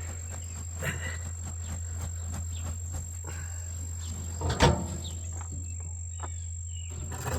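Soil being rummaged through by hand while digging for potatoes, with scattered scrapes and rustles and one louder knock about halfway through. A steady high insect drone, like crickets, runs underneath.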